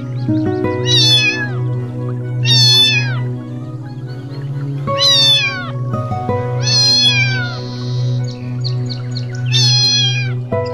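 Kitten meowing five times, each a high mew about half a second long that falls in pitch, over steady background music.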